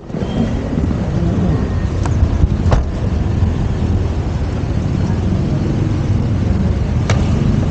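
Steady low rumble of a motor vehicle, with a few sharp clicks about two, three and seven seconds in.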